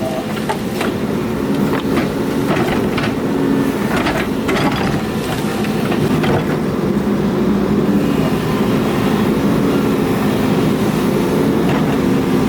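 Excavator's diesel engine running steadily under load, with several sharp metallic clanks and knocks in the first few seconds from the machine's tracks or bucket.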